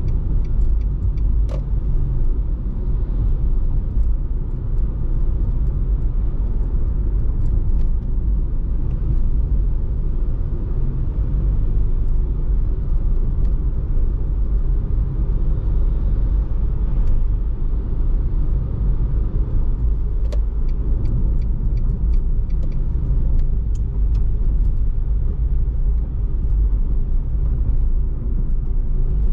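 Steady low rumble of a car driving along a city street, road and engine noise heard from inside the car, with scattered light clicks.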